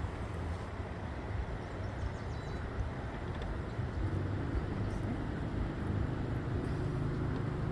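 An engine running steadily as a low hum over outdoor rumble. The hum becomes steadier and more even about halfway through.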